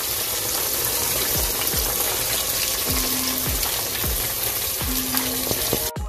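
Flour-coated pork chops deep-frying in hot oil: a loud, steady sizzle and crackle that cuts off abruptly near the end. A faint music beat runs underneath.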